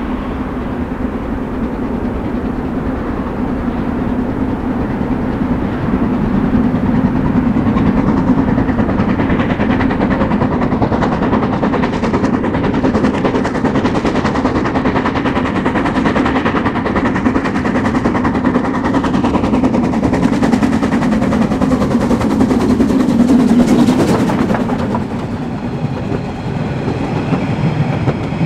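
Narrow-gauge steam train running along the track, a steady rumble that grows louder about six seconds in, with rapid clicking beats through the middle before it eases off near the end.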